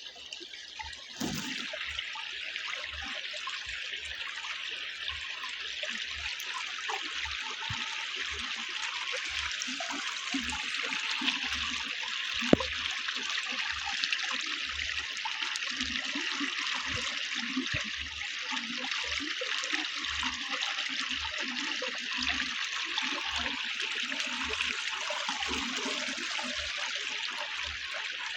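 Small forest creek rushing over rocks as a steady hiss of flowing water. Soft low thuds repeat through it, and there is a single sharp click about twelve seconds in.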